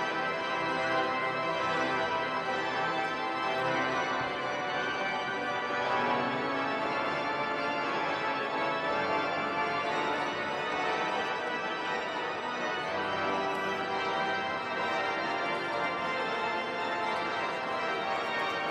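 Large cathedral pipe organ playing dense, sustained chords.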